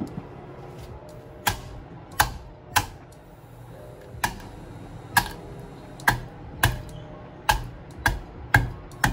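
Fried pork cracklings being crushed on a wooden cutting board with the bottom of a bowl: about a dozen sharp crunching knocks at uneven intervals, over soft background music.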